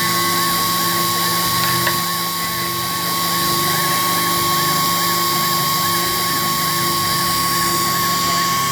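Sherline CNC mini mill's spindle running at high speed with a steady high whine while machining grade 5 titanium with tiny carbide tooling. A faint warble repeats about two to three times a second.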